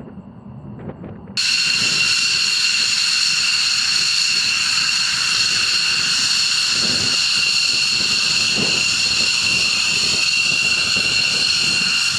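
Jet aircraft engines running with a loud, steady high-pitched whine and hiss that cuts in abruptly about a second and a half in.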